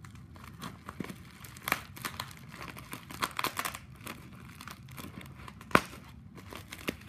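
Packing wrap crinkling and rustling in irregular bursts as a well-wrapped parcel is opened by hand, with a single sharp click about six seconds in.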